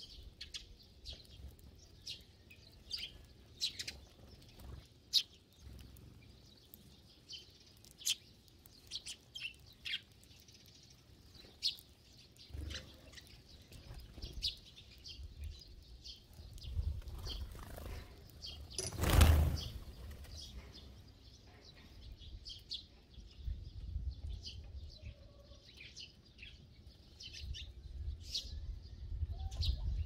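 A flock of Eurasian tree sparrows chirping continually as they feed, in many short high chirps. About two-thirds of the way through comes a loud rush of wings as the flock takes off together.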